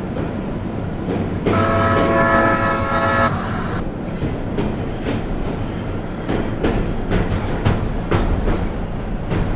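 A train running on the rails, with a steady rumble and irregular wheel clicks over the rail joints. About a second and a half in, its horn sounds one chord-like blast for about two seconds.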